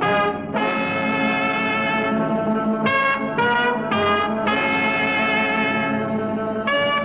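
Brass fanfare music: long held notes broken by a few short ones, over a steady low note.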